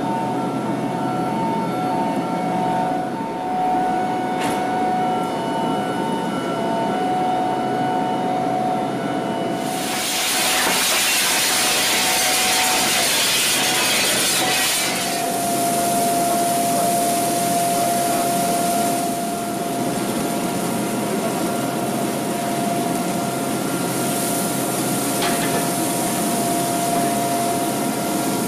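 Steel melt-shop machinery noise: a steady hum with several held whining tones. A loud hiss comes in about ten seconds in, eases off around fifteen seconds and returns near the end.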